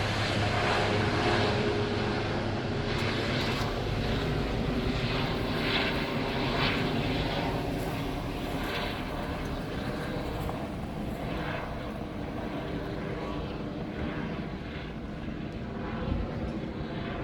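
Airbus H145 (BK-117 D-3) helicopter's turbines and rotor running, the sound steady but growing gradually fainter.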